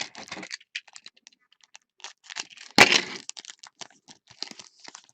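Trading cards and their packaging being handled by hand: a run of small clicks and rustles, with one louder crackle about three seconds in.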